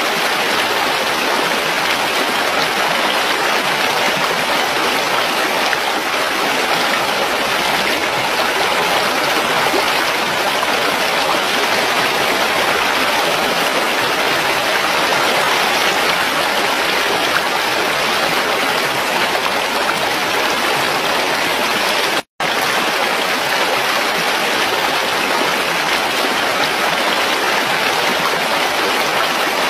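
Steady rush of a stream flowing over rocks, cutting out for an instant about three-quarters of the way through and then carrying on.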